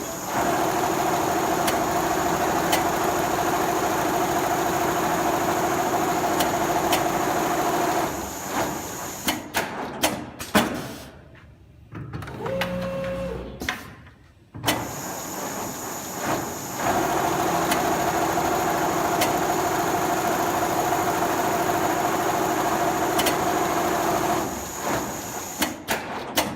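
Four-head CNC sewing machine running steadily with a hum, stitching heavy upholstery leather or fabric. About a third of the way in it stops for several seconds, with a few knocks and a short tone. It then runs steadily again and ends with a few clicks.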